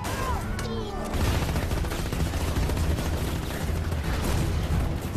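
Rapid, continuous battle gunfire from a war film's soundtrack, many shots crackling over one another. It thickens and gets louder about a second in.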